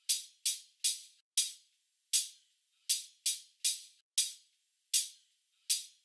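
A percussion recording played through a third-order high-pass crossover filter: about fourteen sharp hits in an uneven rhythm, each dying away quickly, with everything below the treble cut away so only a thin, clicky top end is left. It is what a tweeter alone would reproduce of the track.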